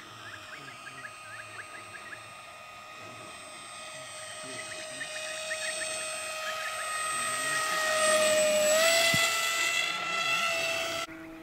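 Electric motor and propeller of a radio-control model whining steadily, growing louder as it comes closer, with a small rise in pitch near the loudest point. The sound cuts off abruptly near the end.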